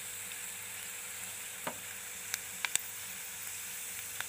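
Hot oil sizzling steadily around dried red chillies, tempering seeds and cumin in a steel pan, with a few scattered sharp pops. This is the tadka (tempering) frying in the oil.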